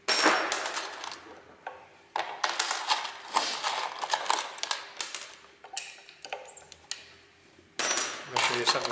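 Metal tools and hardware clinking and rattling, as when wrenches and bolts are handled while unbolting metal equipment. The clatter comes in three spells with short pauses.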